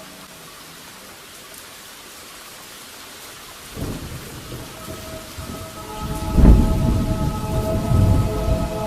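Steady rain, then thunder: a low rumble builds about halfway through and swells into a loud thunderclap about two-thirds of the way in, rumbling on with the rain.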